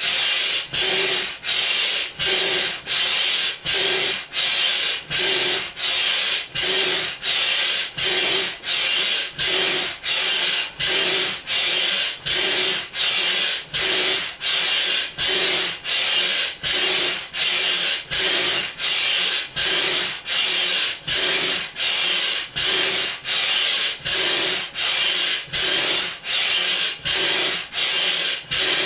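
Hand pump worked steadily, each stroke a rushing hiss of air forced through the hose into a large inflatable flamingo, about three strokes every two seconds.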